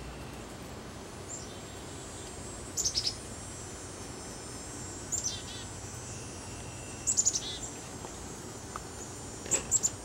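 Small songbird calling: four short bursts of three or four high, quickly falling notes, roughly every two seconds.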